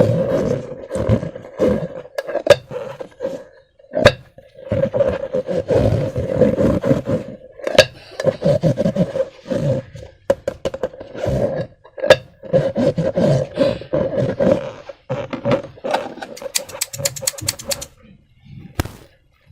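Rubber balloon squealing in a held, buzzing tone that starts and stops again and again, broken by sharp snaps, with a quick run of ticks near the end.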